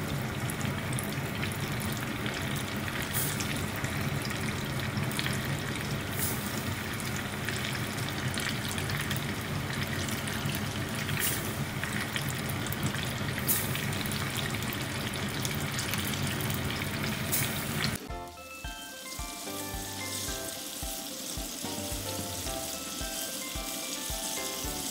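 Breaded chicken pieces deep-frying in hot oil on high heat: a steady bubbling sizzle with scattered sharp pops. About 18 seconds in, background music with a steady beat comes in and the sizzle carries on more faintly beneath it.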